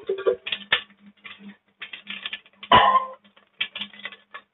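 Wooden spoon stirring whole spices in hot oil in an enamel pot: a string of irregular light clicks and scrapes, with one louder knock about three seconds in.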